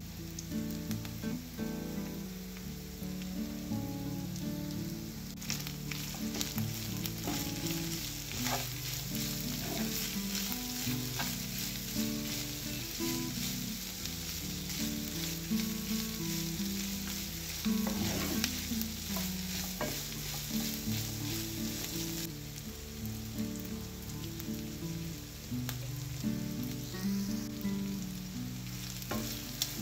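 Ground meat and onions sizzling in hot oil in a frying pan; the sizzle grows louder about five seconds in, with a wooden spoon stirring and scraping through the mince. Low tones that shift in pitch every second or so run underneath.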